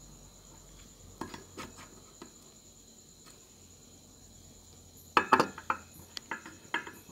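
Steel screwdriver tightening the screws that clamp power transistors to an aluminium heatsink, with small metallic ticks. A quick run of louder clinks comes in the last two seconds.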